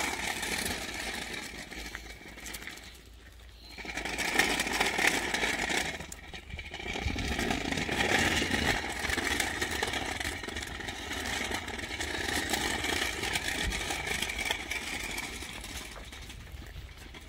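Small hard wheels of a child's kick scooter and a stroller rolling over rough asphalt, a continuous rolling noise that drops off briefly twice.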